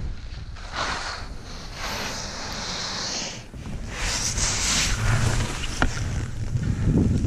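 Skis hissing through snow in three surges, one for each turn, over a steady rumble of wind on the camera's microphone.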